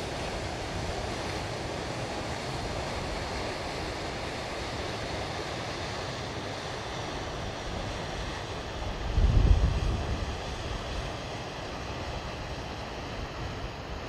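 Steady rush of water spilling over a reservoir dam running high. About nine seconds in, a gust of wind buffets the microphone.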